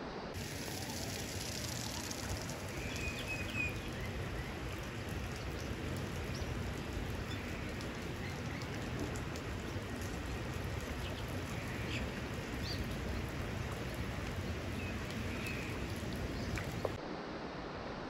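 Creek water rushing steadily, the stream running high after rain, with a few short high chirps over it.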